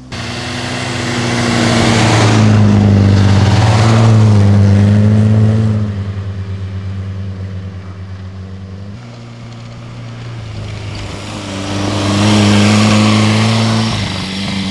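Historic rally car engines revving hard in low gear as the cars pass one after another on a snowy road, the pitch stepping up and down with gear changes. The loudest passes come about two to six seconds in and again near the end, the last car a Renault Alpine A110.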